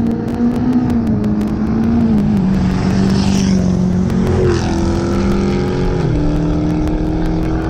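A diesel pickup truck and a car drag racing past at full throttle, their engines running hard. The engine note steps down in pitch around the middle and again near the end as they go by, with a rush of road and wind noise about three seconds in.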